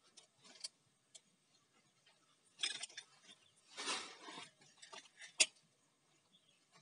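Saw chain clinking and rattling against the steel guide bar of an angle-grinder chainsaw attachment as it is fitted by hand, with scattered small clicks, two short rattles midway, and a sharp click about five seconds in.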